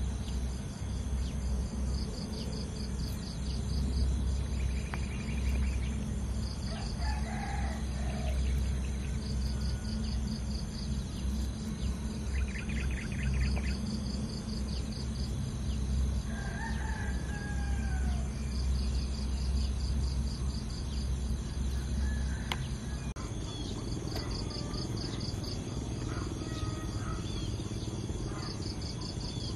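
Outdoor ambience: insects chirping in steady runs of fast pulses, a rooster crowing a couple of times in the distance along with other bird calls, over a low steady rumble.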